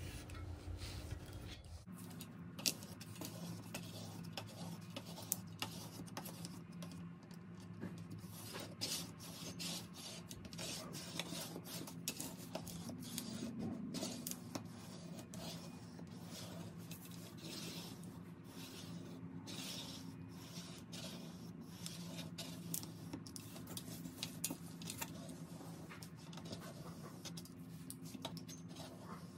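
Hands rubbing and pressing a printed paper image flat onto a tray: quiet scratchy rubbing with many small taps and clicks, over a faint steady low hum.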